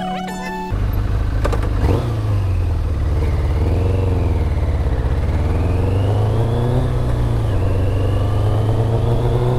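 Background music cuts off abruptly under a second in, giving way to a motor vehicle's engine running under way, its pitch dipping and climbing as it slows and speeds up. A thin whine rises alongside it toward the end.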